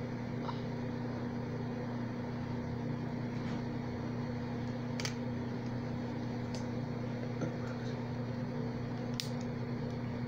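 A steady low electrical hum, with a faint click about five seconds in and another near the end.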